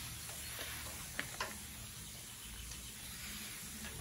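Hand-held trigger spray bottle misting water onto the plant's leaves: a few short sprays in the first second and a half, then only a faint steady hiss.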